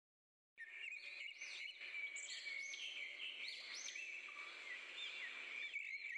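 Birds chirping and calling again and again over a steady high-pitched drone and light outdoor background noise, starting about half a second in after a moment of silence.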